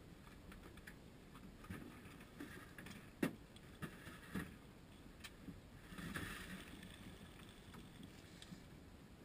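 Faint hiss aboard a fishing boat with scattered knocks and clicks from handling gear at the rail. One sharp knock about three seconds in, and a brief rush of noise around six seconds.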